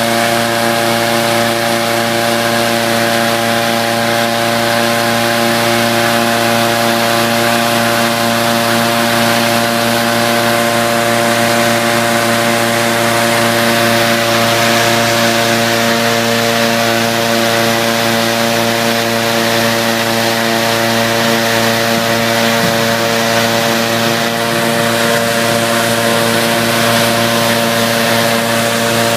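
Petrol-engined balloon inflator fan running steadily, blowing cold air into a hot air balloon envelope during cold inflation. Near the end the balloon's propane burner starts firing into the envelope.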